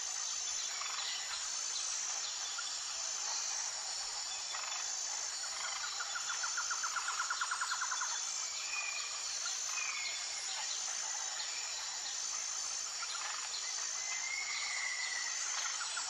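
Tropical jungle ambience: birds calling over a steady high insect drone, with a short high note repeating about every second and a half. A rapid pulsed trill sounds for about two seconds, starting about six seconds in, and starts again at the end, with brief chirps scattered between.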